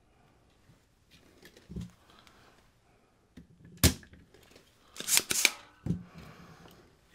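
Spring-loaded vacuum solder removal tool (solder sucker) fired on a circuit board joint: a single sharp snap about four seconds in as the plunger releases to suck away the molten solder. About a second later comes a louder quick clatter of clicks, then a knock.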